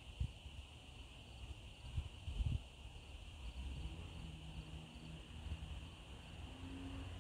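Crickets chirring in a steady high chorus, with low rumbling and a couple of soft low thumps about two seconds in.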